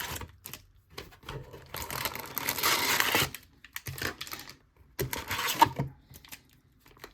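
Foil trading-card pack wrappers and card box crinkling and rustling as they are handled, in several bursts. The longest and loudest rustle comes about two to three seconds in, with a few soft knocks.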